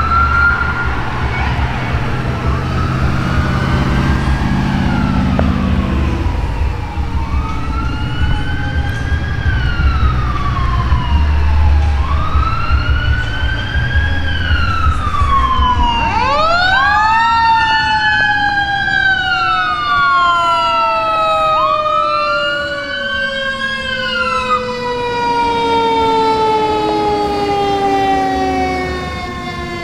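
Fire engine and ambulance sirens wailing, rising and falling in pitch every few seconds, over the heavy rumble of a truck engine. About halfway through, a second siren rises sharply, then winds slowly down in pitch while the wail carries on.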